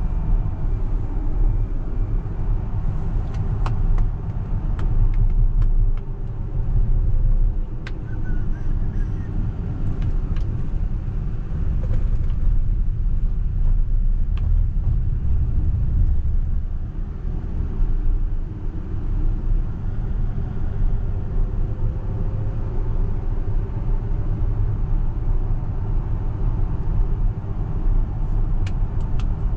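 Road and tyre rumble heard inside the cabin of a Tesla Model X 100D driving on city streets. A faint electric-motor whine falls in pitch as the car slows and rises again as it speeds back up.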